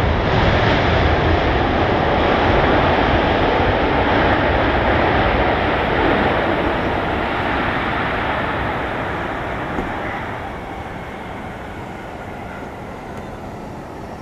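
Jet engine noise from a Boeing 757-200's Pratt & Whitney PW2037 turbofans as the airliner rolls out after touchdown. The noise is loud and steady at first, eases after about six seconds and drops off sharply about ten seconds in as the aircraft slows and moves away.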